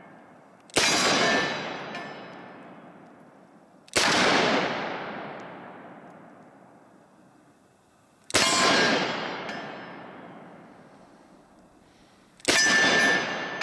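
Four .44 Magnum shots from a Smith & Wesson 629 5-inch revolver, about four seconds apart, each sharp report echoing and dying away over a few seconds.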